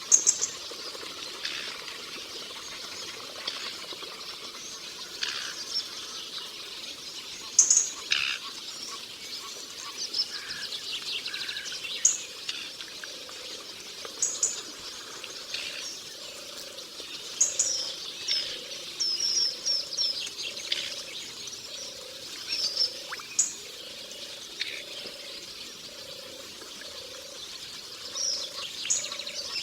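Forest ambience: assorted birds chirping and calling in short, scattered bursts over a steady background hiss. From about halfway in, a low note repeats about once a second.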